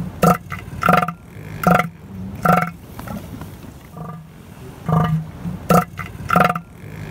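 Male northern elephant seal's threat call: a run of loud, evenly spaced pulses about 0.7 seconds apart, four in a row, then after a pause of about two seconds another run begins. This steady rhythm is the signature by which rival males recognise the caller.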